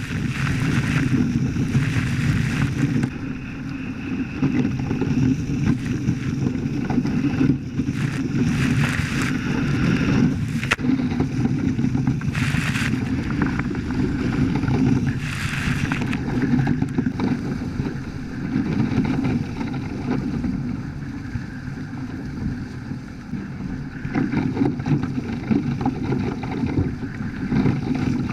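Wind buffeting the microphone and water rushing past the hulls of a Hobie Cat 14 catamaran under sail, a steady rushing noise with a few brief louder surges.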